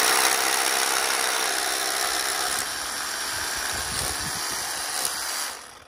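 Cordless hammer drill in hammer mode boring into rock with a carbide bit, enlarging an old 3/8-inch bolt hole to half an inch for a new bolt. It makes a steady, harsh drilling noise that stops suddenly near the end.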